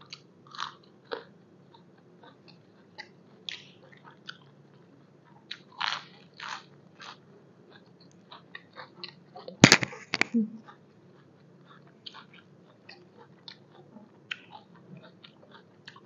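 Close-up eating sounds: biting and chewing crisp raw vegetables, irregular wet crunches and mouth clicks. The loudest is a sharp cluster of cracks about ten seconds in.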